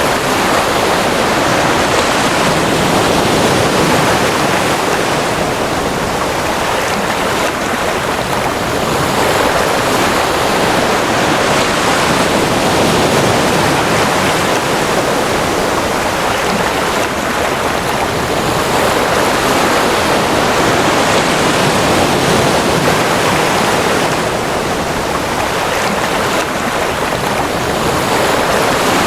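Ocean surf: a steady rush of breaking water whose loudness swells and eases slowly over many seconds.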